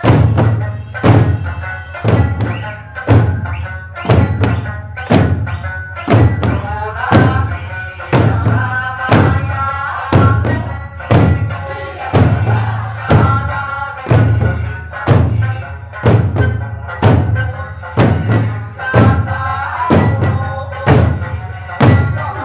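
Eisa drum troupe striking large barrel drums and hand-held drums together in unison, one heavy beat about every second, each a deep thud with a sharp crack on top. Pitched Okinawan folk music runs beneath the beats.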